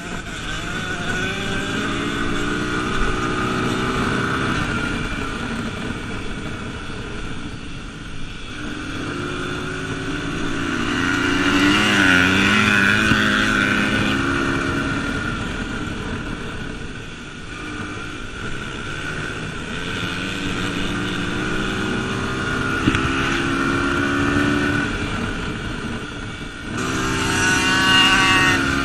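Dirt bike engine heard from on board during short-track riding, revving up and easing off in long swells as it laps. A sudden louder, rising rev comes near the end.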